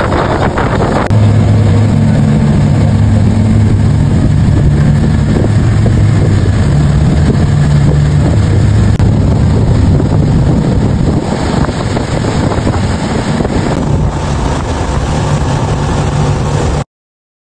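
Motorboat running at speed: a steady low engine drone under the rush of wind on the microphone and water spray off the hull. It cuts off abruptly near the end.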